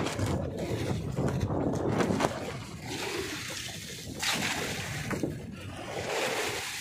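Sea water splashing and sloshing irregularly against the hull of a small outrigger fishing boat.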